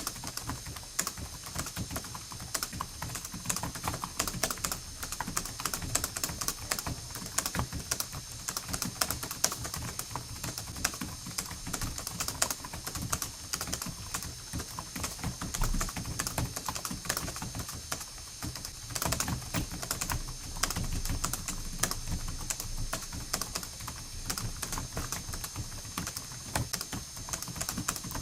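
Continuous fast typing on a computer keyboard: a dense, unbroken run of key presses and clicks.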